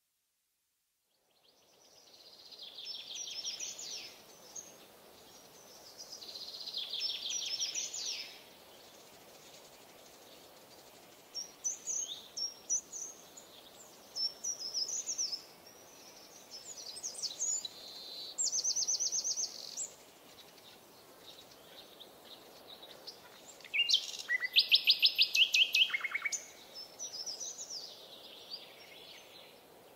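Forest ambience recording: birds singing one phrase after another over a faint steady background hiss, fading in about a second and a half in. The loudest song is a fast run of repeated notes about three-quarters of the way through.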